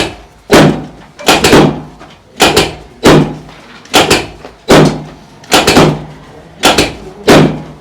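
A steady series of sharp slapping thumps, mostly in quick pairs, about one pair a second: hands striking the patient's body during a chiropractic treatment.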